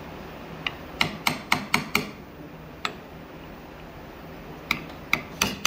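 Hammer tapping a new oil seal down into a hydraulic pump's seal housing, metal on metal: a quick run of about six ringing taps about a second in, one more near the middle, and three more near the end.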